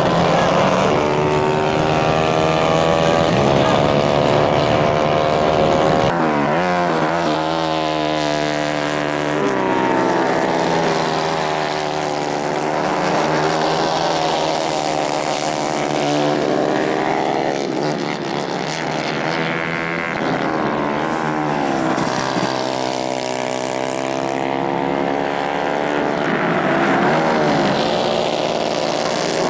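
150 cc racing kart engines running hard as several karts race past, their pitch rising and falling over and over as they rev up on the straights and ease off into the corners.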